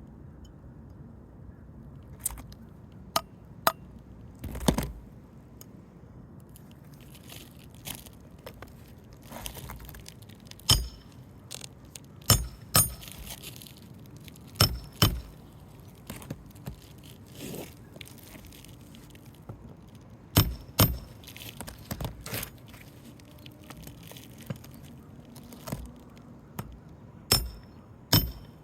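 Irregular sharp metal clinks and knocks of a Roof Snake shingle-nail remover being driven under asphalt shingles with a hammer, working nails loose. The strikes come singly and in short clusters, a few seconds apart.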